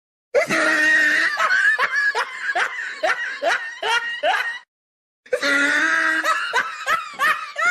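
High-pitched laughter in a quick rhythmic run of about two 'ha's a second, breaking off about halfway through and starting up again.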